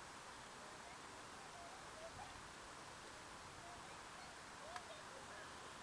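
Quiet open-air background: a steady faint hiss, with a few faint, short distant calls about two seconds in and again near the end, and one small click shortly before the end.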